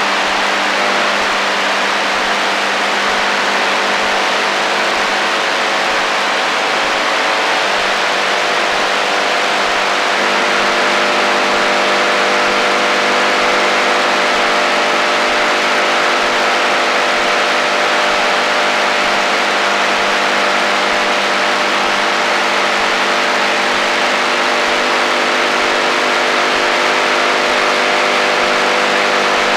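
AM radio receiver tuned in the HF band, giving out steady static hiss with several steady whistling interference tones layered through it. The set of tones shifts twice, about 7 and 10 seconds in.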